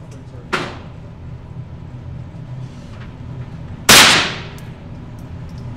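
Two gunshots: a fainter one about half a second in, then a much louder, close one near four seconds in that rings out for about half a second.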